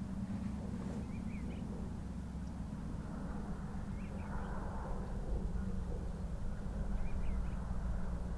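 A songbird repeating a short chirped phrase three times, about every three seconds, over a steady low hum.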